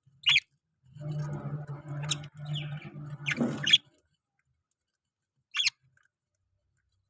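Parrots calling: short, sharp, high squeaky chirps, one near the start and one about five and a half seconds in, with about three seconds of scratchy chattering in between that ends on a sharp squeak.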